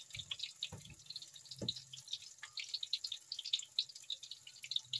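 Food deep-frying in hot oil in a wok: a steady, irregular sizzle of small crackles and pops, with a faint low hum underneath.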